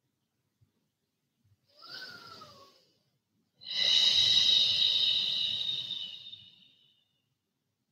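A person breathing deeply and audibly: a short, quieter breath, then a long, loud exhale that fades out, the slow breathing of a held yin yoga posture.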